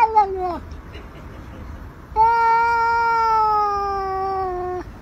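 A black-and-white cat giving long, drawn-out meows: one call tails off about half a second in, then after a short pause a single long call of nearly three seconds that sinks slowly in pitch towards its end.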